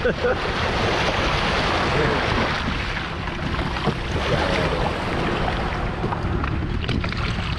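Steady wind rumble on the microphone over the wash of shallow sea water lapping at the shore.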